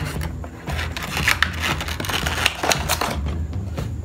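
Stiff plastic blister packaging of an action-figure card crinkling and crackling as it is handled. The crackles come thick and irregular, densest in the middle.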